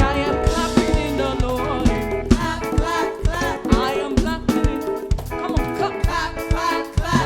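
Live African praise music: a band with drum kit playing a steady beat under singing voices.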